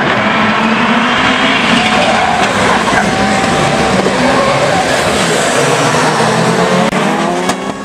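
A pack of rallycross cars racing together at full throttle off the start and into the first corner: several engines at high revs over tyre noise. Near the end, engine pitch rises as cars accelerate.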